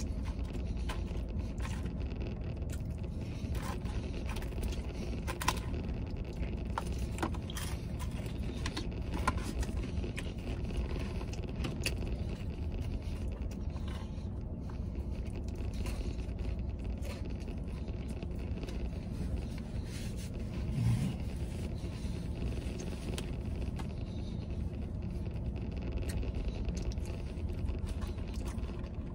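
Steady low rumble inside a truck cab, with scattered small clicks and scrapes from a plastic fork working through fries in a paper tray, and chewing.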